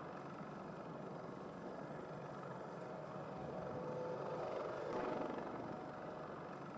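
Twin-engine AC332 helicopter's rotor and engine noise, running steadily as it lifts off and hovers, swelling louder about five seconds in and then easing back.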